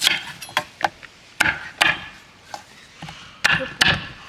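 Kitchen knife chopping Hawaiian sweet potatoes on a wood-and-resin cutting board: about eight sharp knocks of the blade striking the board, at uneven intervals.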